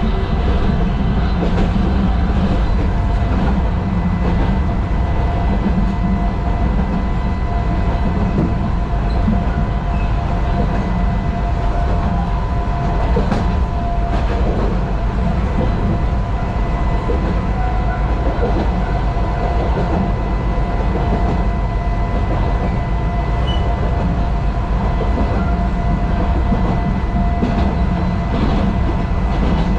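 Narrow-gauge (762 mm) electric train heard from its cab while running along the track: a steady low rumble of wheels and running gear, with a faint steady tone above it and a few sharp clicks.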